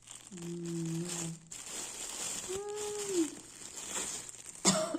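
Plastic packaging crinkling and rustling as it is unwrapped by hand, with two short hummed voice sounds and a sharp click near the end.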